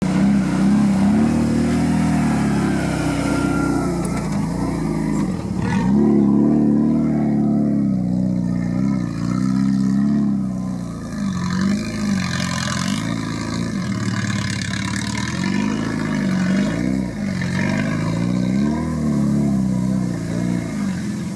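Suzuki Samurai off-road trial truck's engine running under load, revving up and down over and over as it crawls through the course, the revs rising and falling every second or two.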